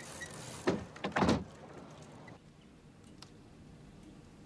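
A casement window being pulled shut: two short, loud swishing knocks about half a second apart, about a second in.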